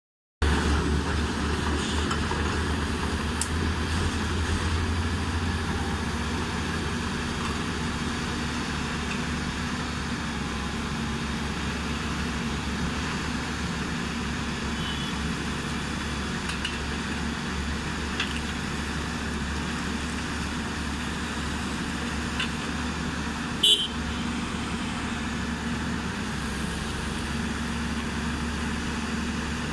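Diesel engine of a Lonking LG6225E crawler hydraulic excavator running steadily at idle, a little louder for the first few seconds before settling. A single sharp click about three-quarters of the way through.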